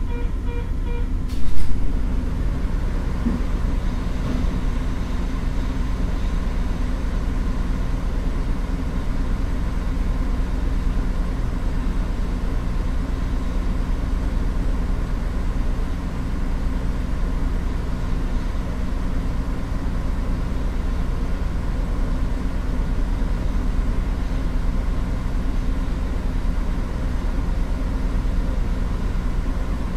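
DRC1000-series diesel railcar idling at a standstill: a steady low engine hum. A repeating electronic chime stops about a second and a half in, just as a single loud knock sounds.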